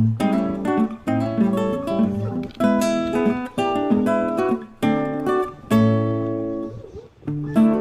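Background music: a strummed acoustic guitar playing chords with a steady rhythm.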